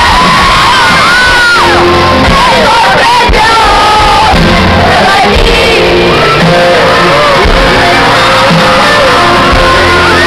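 Live pop-rock band playing loudly in a large hall: a lead singer over electric guitar, bass and drums, heard from the audience with many voices singing and shouting along.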